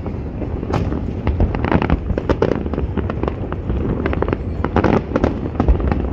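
Aerial fireworks shells bursting in quick, irregular succession, many bangs close together over a steady low rumble.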